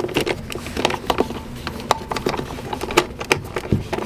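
Palm ratchet clicking and tapping in irregular spurts as it drives a screw into an RV toilet's water valve.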